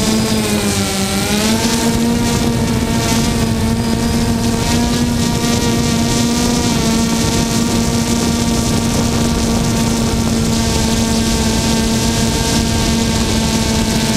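DJI Phantom quadcopter's electric motors and propellers, heard from the onboard camera, giving a steady whine of several tones that dips briefly in pitch about a second in and then holds level.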